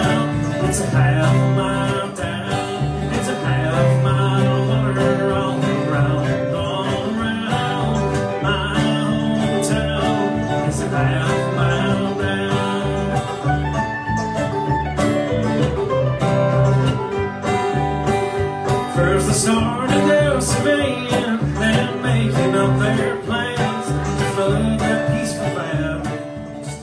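Background music: a country-style tune led by plucked guitar, fading out at the very end.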